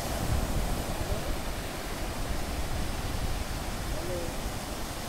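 Surf: small sea waves breaking and foaming up the beach, a steady wash of noise.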